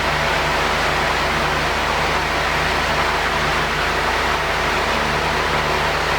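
Steady machinery noise: an even rushing hiss over a constant low hum, unchanging throughout.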